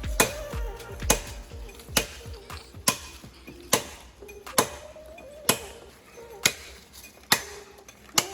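A blade chopping into wood with steady, evenly spaced strokes, a little faster than one a second, about ten in all.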